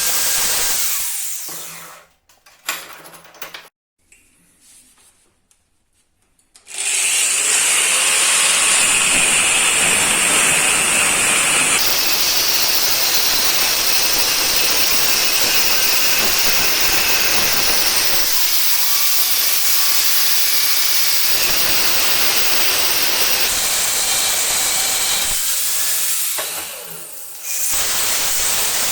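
Power tool working metal, a loud hissing grind that runs, stops for about five seconds near the start, then runs on, its tone shifting a few times.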